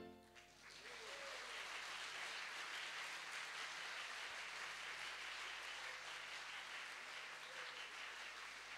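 The last accordion and vocal note dies away in the first half-second, then an audience applauds steadily.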